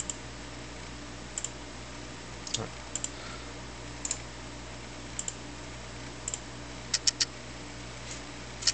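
Computer mouse button clicking about once a second, often in quick pairs, with three quick clicks near the end, over a steady low hum.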